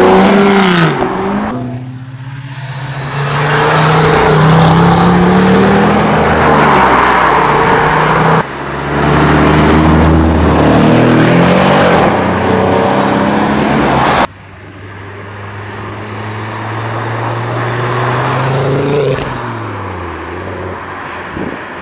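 Performance cars accelerating hard away one after another, their engines revving and exhausts loud, the pitch rising through each gear. Near the end a green Mk2 Ford Focus RS's turbocharged five-cylinder climbs in pitch, then fades as it drives off.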